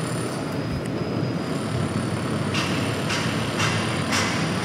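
Steady rushing outdoor noise, and from about halfway footsteps crunching on gravel, roughly two steps a second.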